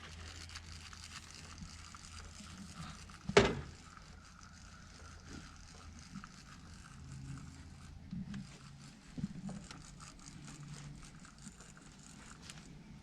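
Fishing reel being cranked, with faint fine clicking and rustling over a low steady hum, and one sharp knock about three and a half seconds in that is the loudest sound.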